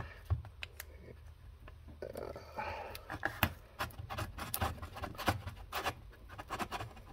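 A large knife blade cutting and scraping along the edge of a cardboard shipping box: irregular scratches and small clicks, sparse at first and coming thick and fast from about two and a half seconds in.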